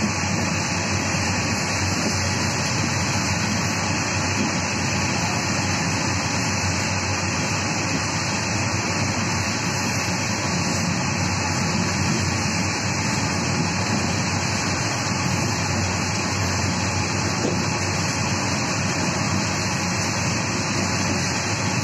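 Steady running noise of a moving train, heard from inside the carriage by the window: an even, continuous rumble and rush with no breaks.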